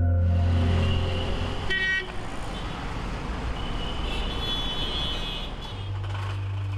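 Outdoor traffic noise with a brief car horn toot about two seconds in. A steady low engine hum comes in near the end.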